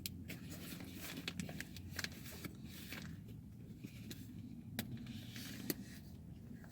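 Mouthful of a spinach feta wrap being chewed, with small wet clicks and crackles scattered through, over a low steady background hum.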